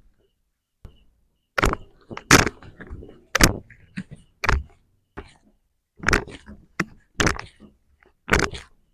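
A run of about a dozen sharp slaps or thumps over some seven seconds, coming singly and in quick pairs at an uneven pace: hands striking the patient's body during a chiropractic treatment.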